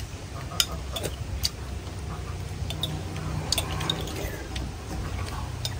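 Scattered light clicks of spoons and chopsticks against ceramic soup bowls as people eat noodle soup, over a low steady hum.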